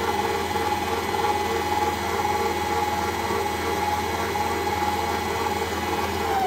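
Electric motor of a stand mixer running steadily with an even whine while it mixes a thin liquid of yeast water, sugar, salt and oil in its stainless bowl. The whine starts to drop in pitch at the very end as the mixer is switched off.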